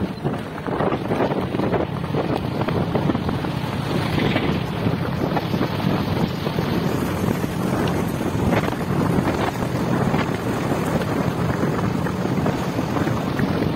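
Wind buffeting the microphone over the steady drone of a moving vehicle, its engine and tyres running on a gravel road, with scattered short knocks from bumps.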